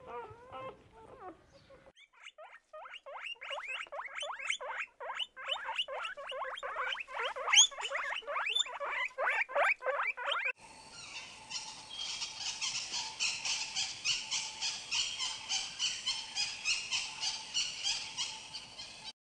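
Guinea pigs squeaking in a rapid run of short rising squeaks. About ten seconds in this gives way to helmeted guineafowl calling in a fast, rhythmic, higher-pitched chatter of about four calls a second, which cuts off suddenly near the end.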